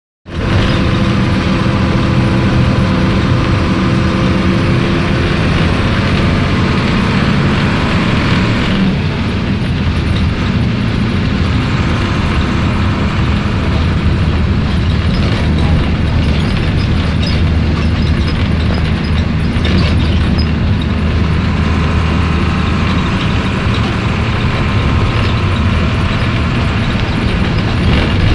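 Mercedes-Benz OF-1721 city bus's OM 366 LA turbocharged inline-six diesel running with the bus under way. Its tone shifts about nine seconds in, then settles into a steady low drone.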